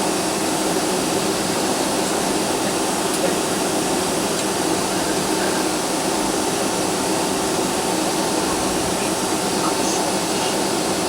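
Steady cabin noise inside a Boeing 757-200 with its engines running: an even rushing hum with a faint steady whine through it.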